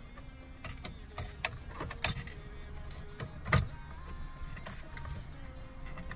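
Plastic clicks and knocks from a car's dashboard trim and climate control panel being handled and seated on its locating pins, with one louder knock about three and a half seconds in.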